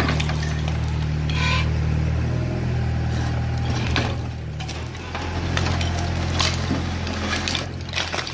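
Excavator's diesel engine running steadily, its note shifting twice as the load changes, with scattered knocks and clatters throughout.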